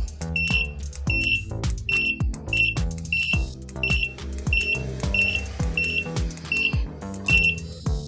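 Buzzer wired to a 433 MHz receiver's VT (valid transmission) pin giving short, identical high beeps, about three every two seconds, each beep signalling that the receiver has picked up the remote's button press. Background music with a steady beat runs underneath.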